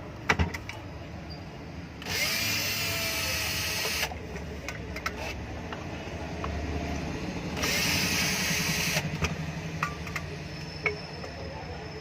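Electric drill-driver whirring in two runs, about two seconds and then just over a second long, as it backs out the screws holding the ceiling fan's body together, with metallic clicks of handling between the runs.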